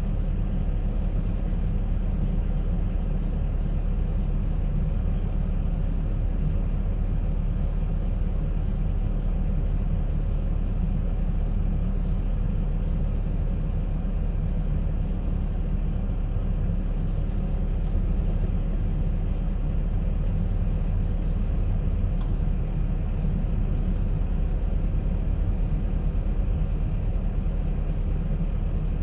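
Concrete mixer running steadily with a low, even rumble.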